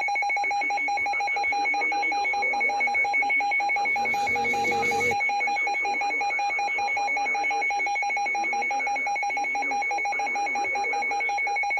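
Emergency Alert System attention signal: a steady, unbroken two-tone alert tone held throughout, with a short burst of noise about four seconds in.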